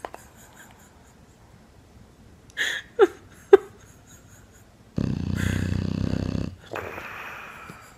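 English bulldog snoring in its sleep: a couple of short squeaky snorts about three seconds in, then a long, loud snoring breath a couple of seconds later.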